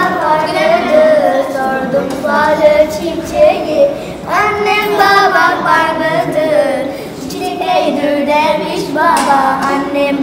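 A child singing a song into a handheld microphone, in phrases of held notes that bend in pitch.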